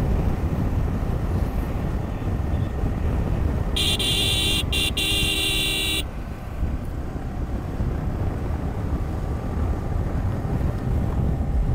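Steady wind and engine rumble of a Yamaha R15 motorcycle on the move, heard from the rider's helmet. About four seconds in, a vehicle horn sounds for about two seconds, broken twice very briefly.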